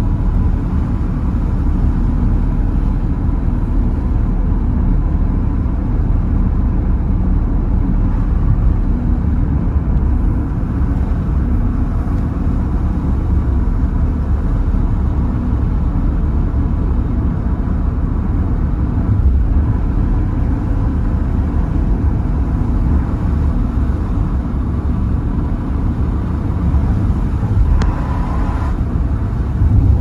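Steady low rumble of a car driving along a country road, engine and tyre noise heard from inside the cabin.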